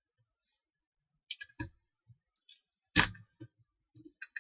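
Light clicks and taps as a workpiece is handled and set on the metal base of a drill stand under the bit, with one sharper knock about three seconds in. The drill is not running.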